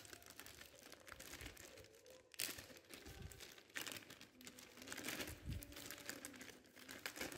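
Plastic poly mailer bag crinkling and rustling faintly as hands pull and tear it open, with a few louder rustles along the way.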